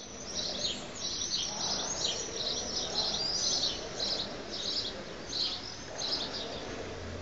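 Many small birds chirping in quick, overlapping calls over a faint steady background noise. The chirps come thickest for the first few seconds and then grow sparser.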